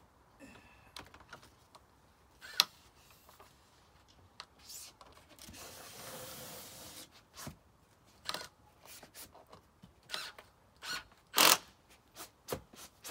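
Vinyl skirting panels being handled and fitted into their track: scattered sharp plastic knocks and clicks, the loudest near the end, and a scraping slide lasting about a second and a half in the middle.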